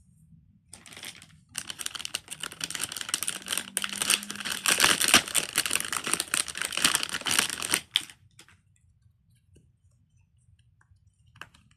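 Crinkly plastic being handled, a dense rustling crackle of many small clicks that stops abruptly after about seven seconds.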